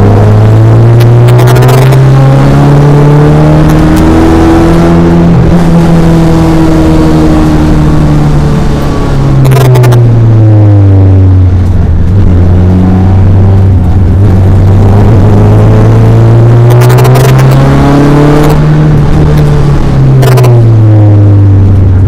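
Race car engine running hard and loud, its revs climbing slowly and then falling sharply twice, about ten seconds in and again near the end, each time followed by a new climb. A few brief sharp crackles cut through it.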